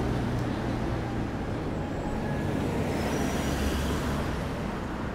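Steady low rumble of road traffic on a city street, with a car engine running nearby.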